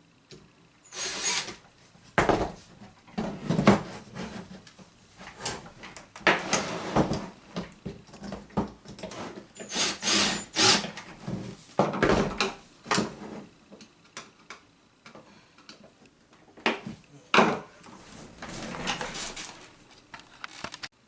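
Irregular handling and assembly noises: clicks, knocks and rustling scrapes of parts and tools being picked up and worked on, in bursts of a second or so with short pauses between.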